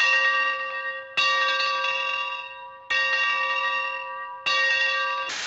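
A bell struck slowly, one stroke about every second and a half: it is ringing from an earlier stroke at the start, then struck three more times. Each stroke rings with several steady overtones and fades before the next. A hiss cuts in at the very end.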